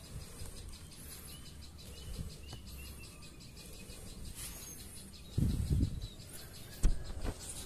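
Faint, short chirps of a small bird, likely the prinia at its nest, over a steady fast pulsing high buzz. About five and a half seconds in comes a loud burst of rustling, and near the end a sharp knock with more rustling, the sounds of hands or leaves being moved near the microphone.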